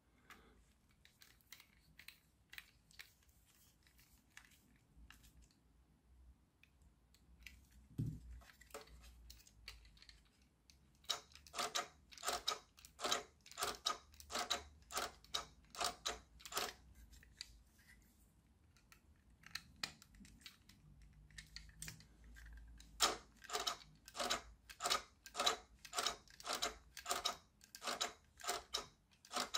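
Plastic parts of a toy remote-control hand controller being handled and fitted together: faint handling noise with a single low thump, then two runs of sharp plastic clicks at about two a second, one from about a third of the way in and one near the end.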